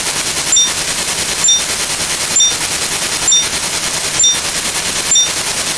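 Synthetic machine-gun sound effect firing continuously as a dense, steady rattle. A louder crack with a brief high ping comes about once a second, six times.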